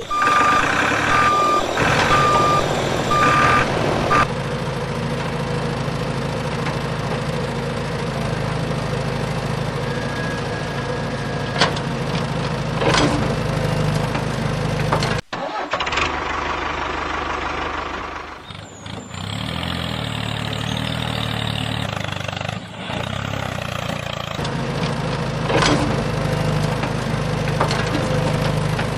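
A motor or vehicle engine running steadily, with a series of short evenly spaced beeps during the first four seconds. The sound cuts out for a moment about fifteen seconds in and dips briefly a few seconds later.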